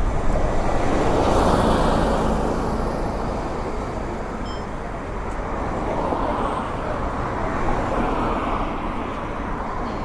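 Road traffic: cars passing, the noise swelling about a second in and again around six to eight seconds.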